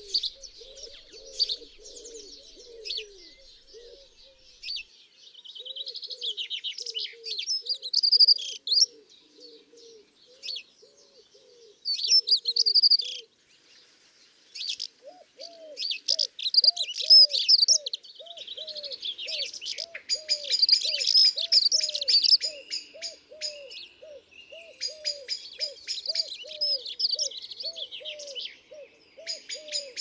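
Layered garden birdsong: a collared dove's low coos repeat steadily, with a short break midway, beneath the chirping of house sparrows and the twittering and song of other small birds such as house martin and dunnock. A blackbird joins near the end.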